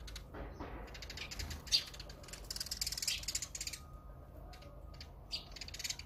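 Azure-winged magpie giving harsh, rasping calls: a long ratchet-like rasp starting about a second in and lasting about three seconds, then two short rasps near the end.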